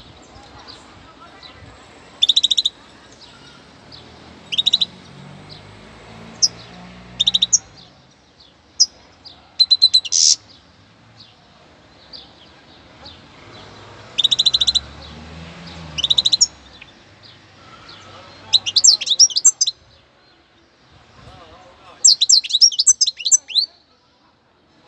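Young European goldfinch twittering in short, high-pitched bursts of song and call notes every couple of seconds, with a longer, denser twittering run near the end.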